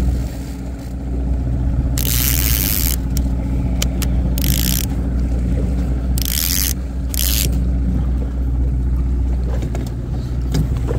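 Boat's outboard motor running steadily at trolling speed, a constant low hum, with four short scraping hisses between about two and seven and a half seconds in.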